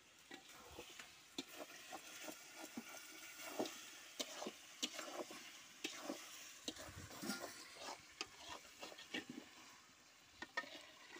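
Chicken curry being stirred and mixed, a metal spatula scraping and clinking irregularly against the pan, with some sizzling underneath.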